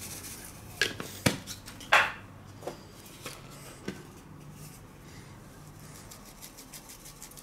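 Metal-capped spice shakers being shaken over a steel bowl and set down on a wooden cutting board: a few sharp knocks and clicks, the loudest about two seconds in.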